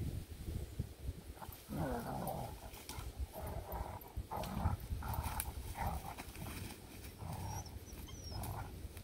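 Dogs, a Tamaskan and a German shepherd, playing: a run of about eight short calls, the first sliding down in pitch, over the crunch of dry leaves under their paws.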